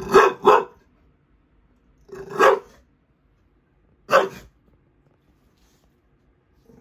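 A bulldog barking: a quick double bark, then single barks about two and four seconds later. It is barking in alarm at something it is wary of, which the owner takes to be her crutch.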